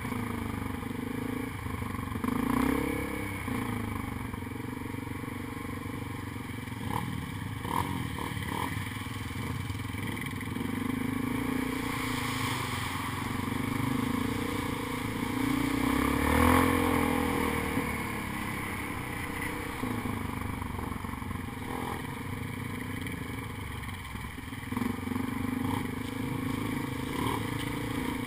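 Quad bike (ATV) engine running as it rides a rough dirt trail, its pitch rising and falling with the throttle, with short knocks and rattles over the bumps. About halfway through it revs harder and gets louder as it crosses a mud puddle.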